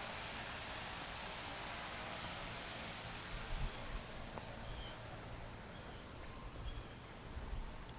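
Insects trilling steadily, a high pulsing buzz, over faint low rumble with a few soft bumps.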